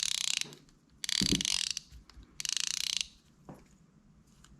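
Shimano Aldebaran baitcasting reel's drag clicking in three short bursts of rapid ticks as the spool is turned against the drag, a drag that feels unusually tight to its owner, who suspects something jammed inside.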